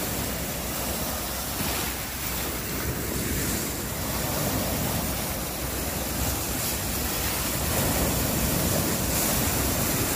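Small bay waves breaking and washing up over a sand-and-shell beach, a steady wash of surf with gentle swells as each wave comes in.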